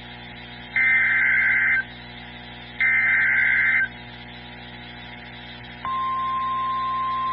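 NOAA Weather Radio SAME alert header: two harsh digital data bursts, each about a second long and a second apart. About six seconds in, the steady single-pitch 1050 Hz weather-radio alert tone begins. The sequence marks the start of a new weather warning broadcast.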